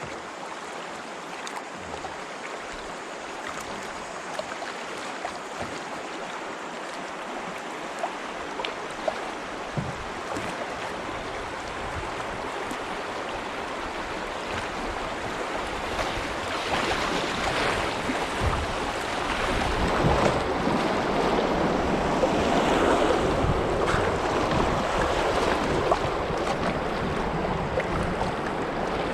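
River water rushing around a boat on the Cheat River, growing louder about halfway through as the current picks up, with a few faint knocks.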